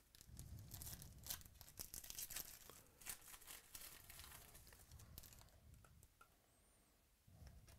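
Foil trading-card pack wrapper being torn open and crinkled, a faint run of quick crackles that thins out after about five seconds.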